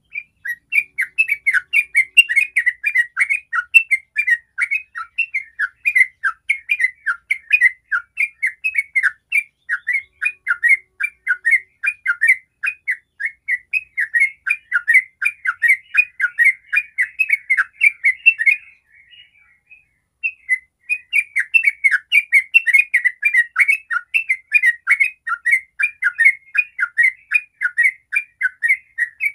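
Yellow-vented bulbul singing its long rolling 'ropel' song: a fast, unbroken run of short chattering notes, about four a second, that stops for about two seconds some two-thirds of the way through and then starts again.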